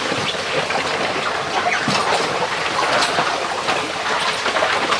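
Motor-driven arrastra mill running, its drag stones grinding and scraping over the stone-paved floor of the pit. There is a steady clatter with irregular clanks from the chained steel drag arm.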